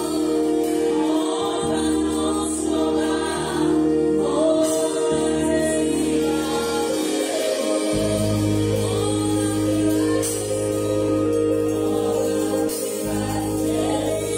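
A woman singing a slow gospel worship song over held chords on a Yamaha electronic keyboard. A deeper bass note comes in about halfway through.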